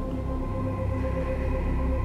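Dark, tense background score music: a low pulsing drone under a few steady held tones.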